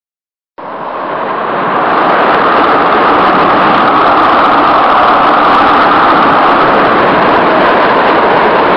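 Hurricane wind: a loud, steady rushing noise that comes in about half a second in and swells over the next second or so.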